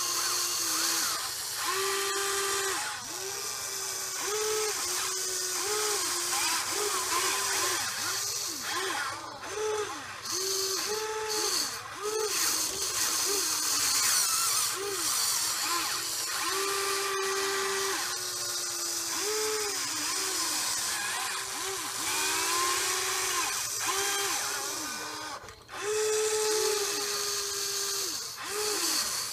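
Huina 580 RC excavator's electric motors whining as the boom and bucket move, the pitch stepping up and down with each movement, over a steady high gear hiss. The whine dips briefly about three-quarters of the way through.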